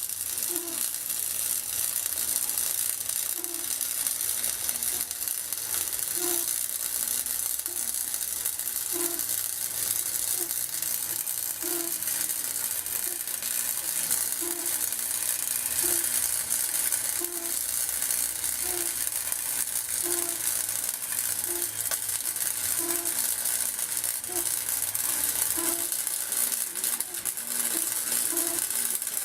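Electric arc welder laying a continuous weld bead: a steady crackling sizzle with a faint low pulse about every second and a half.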